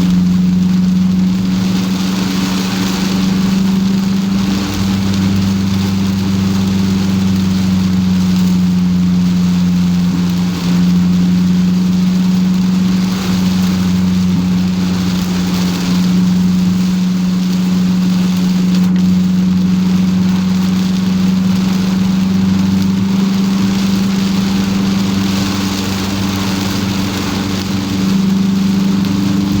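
Car driving in rain, heard from inside the cabin: a steady engine hum, with the hiss of rain and tyres on a wet road swelling and fading every few seconds.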